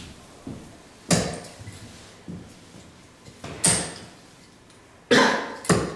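Steel-tip darts thudding into a bristle dartboard, one sharp impact every couple of seconds, with a louder knock or two near the end.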